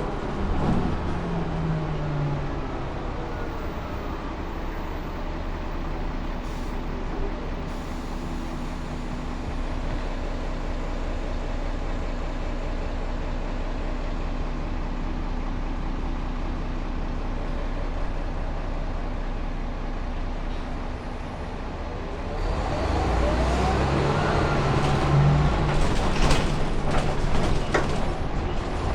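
A city bus heard from inside the cabin: the engine and transmission whine falls as the bus slows, then the engine runs steadily at a low hum for most of the time. Near the end it gets louder, with a rising whine and rattles and knocks from the bus body as it pulls away.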